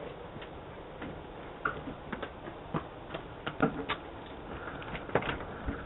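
Steady hiss from a doorbell camera's microphone, with faint irregular clicks and taps scattered through it, a few of them louder in the middle.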